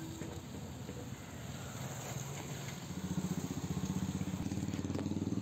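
Small vehicle engine running on the road, a low pulsing drone that grows louder about three seconds in as it comes nearer.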